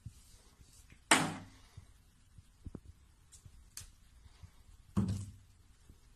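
Plastic toiletry bottles knocked over by a cat's paw: a sharp thunk about a second in and a second, softer one near the end, with a few light taps between.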